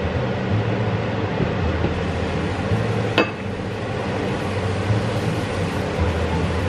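Food frying in a pan on the hob: a steady sizzle, with one sharp clink of a utensil about three seconds in.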